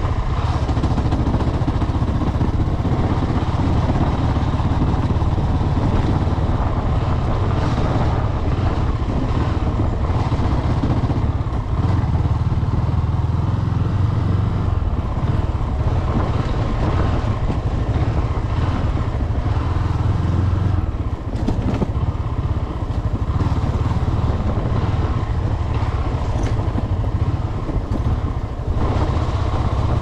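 Honda motorcycle engine running as the bike is ridden, a steady low drone.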